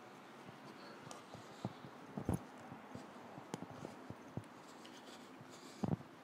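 Faint scattered clicks and knocks over a low steady hiss, with two louder knocks, one about two seconds in and one near the end.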